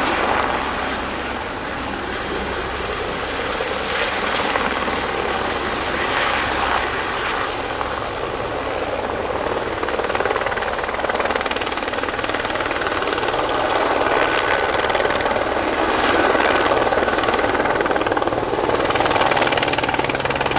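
Aerospatiale AS350B Ecureuil helicopter hovering low: steady main-rotor and single-turboshaft engine noise, growing a little louder near the end as it turns nose-on.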